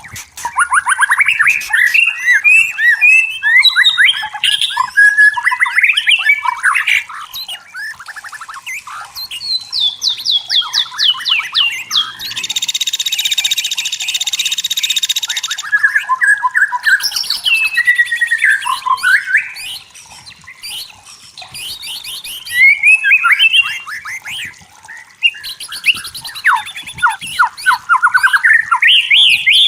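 White-rumped shama singing: a fast, varied run of whistles, trills and quickly repeated notes, with a harsh rasping call lasting about three seconds near the middle.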